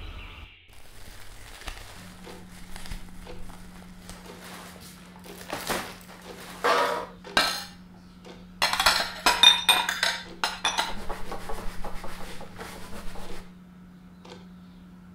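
Ceramic plates and cutlery clinking and clattering as dishes are gathered and stacked: a few separate knocks at first, then a dense run of rapid clatter that stops shortly before the end. A faint steady low hum lies underneath.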